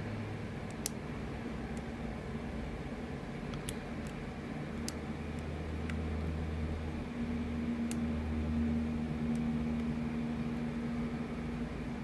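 A few faint, sharp metallic clicks of a hook pick working the pins inside a Sargent XC lock cylinder while probing for its check pin, over a steady low hum.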